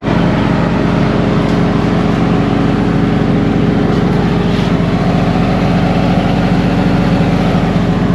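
An engine running steadily at a constant speed, a loud, even drone that starts abruptly and holds without change.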